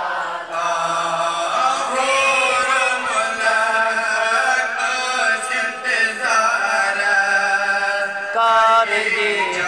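A naat, a devotional praise-poem for the Prophet, chanted by a male voice without instruments in long held lines that rise and fall in pitch.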